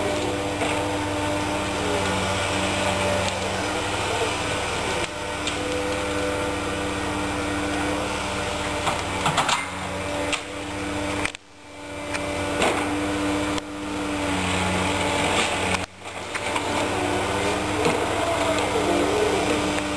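Wheeled forestry harvester's diesel engine and hydraulics running steadily as the boom and harvester head move, the drone rising and falling in level. The sound drops out sharply twice, a little past halfway and about three-quarters through.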